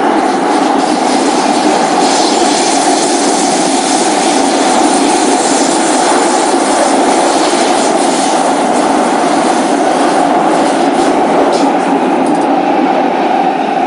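Singapore MRT train running between stations, heard from inside the carriage: a steady rushing noise with a constant droning band from the traction motors, the motor sound the rider calls bad.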